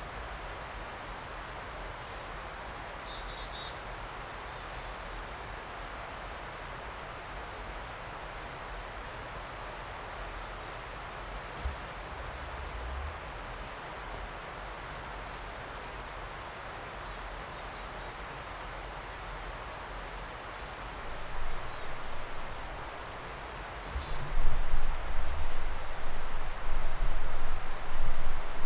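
A small songbird repeats a high, thin rising song every few seconds over a steady background hiss. About two-thirds of the way in, and again more strongly near the end, low rumbling buffets on the microphone become the loudest sound.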